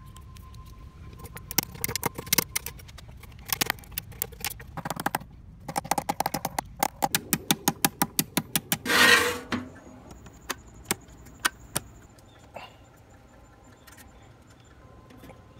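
Ball-peen hammer striking steel wire laid on a wooden stump to straighten it: many light, sharp blows, settling into a quick regular run of about four or five a second. A short louder noise comes about nine seconds in, followed by a few scattered clicks.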